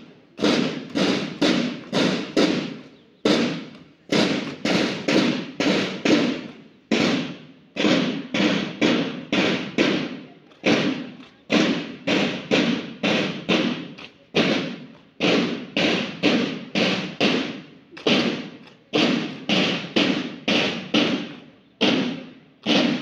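School drum corps snare drums beating a marching cadence: sharp strikes about two a second, in phrases of roughly three seconds with a short break between them.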